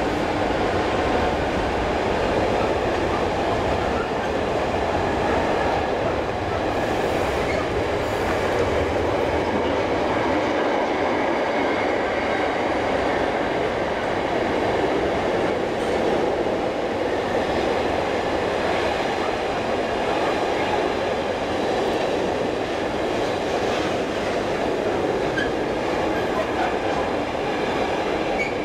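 A train running past, with a steady, continuous noise of wheels rolling on the rails.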